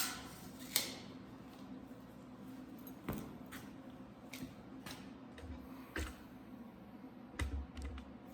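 Scattered clicks and light knocks from tools and metal parts being handled and set down, about half a dozen spread out with a small cluster near the end, over a steady low hum.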